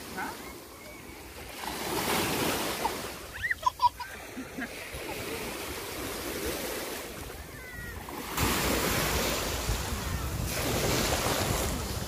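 Shallow sea water washing and splashing in surges every couple of seconds as small waves come in. Wind rumbles on the microphone from about two-thirds of the way through.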